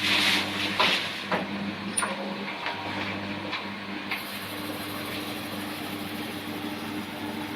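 Strip-cutting machine running with a steady electric hum, with a few sharp clicks in the first half that then stop.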